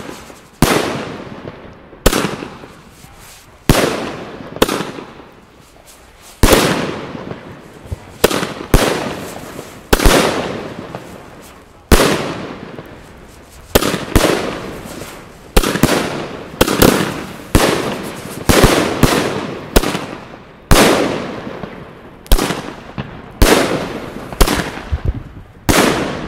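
Pangu 'Brasilian Box' 114-shot fireworks cake firing: a series of sharp bangs as its shells go off about once a second, each trailing off over about a second, coming closer together in the second half.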